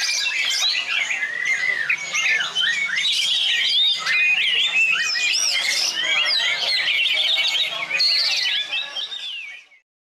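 Many caged songbirds of mixed kinds chirping, whistling and squawking over one another in a dense, unbroken chorus, fading out near the end.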